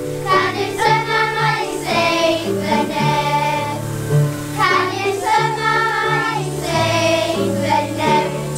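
Children's choir singing a song, with an accompaniment holding low notes beneath the voices.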